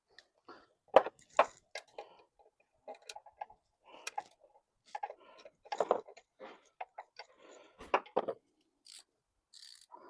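Irregular metallic clinks, taps and scrapes of a hand wrench working an alternator mounting bolt under the hood, with a few sharper clicks about a second in and near the eight-second mark.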